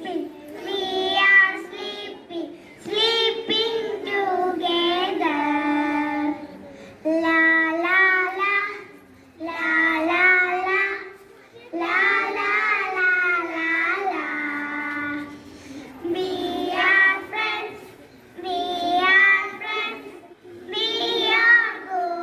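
Young schoolchildren singing a song without accompaniment, in phrases of a few seconds with short breath pauses between.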